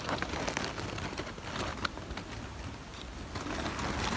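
Dry fallen leaves rustling and crackling in scattered light ticks as someone moves through the leaf litter.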